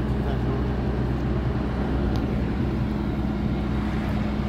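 Truck engine idling with a steady low drone.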